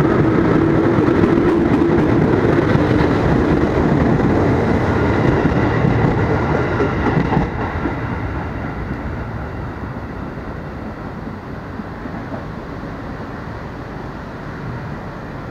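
Electric commuter train (KRL Commuter Line) running close along the platform, its wheels rumbling and clacking over the rails. After an abrupt break about seven and a half seconds in, a quieter steady train rumble slowly grows fainter.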